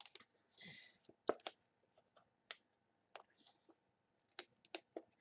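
Faint, sticky clicks and squelches of slime being kneaded and pulled in the hands, coming irregularly, the sharpest about a second in. Two short soft hisses sit among them.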